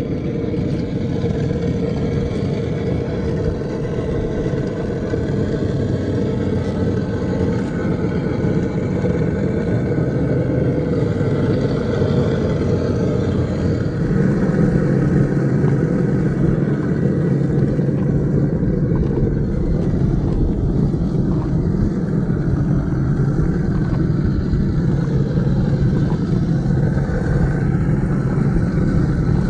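Traxxas TRX-4 K5 Blazer 1/10-scale RC crawler running, a steady low drone. About fourteen seconds in it changes to a louder, lower hum.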